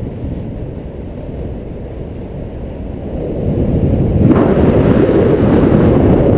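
Wind rumbling and buffeting on an action camera's microphone during a paraglider flight, a low steady rush that grows louder about four seconds in.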